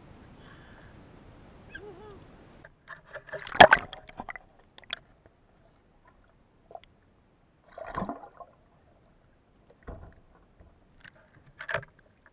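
Lake water sloshing, splashing and gurgling heard with the microphone dipped underwater. Between the bursts the sound drops almost to nothing; the loudest splash comes about three and a half seconds in, with further bursts around eight seconds and near the end.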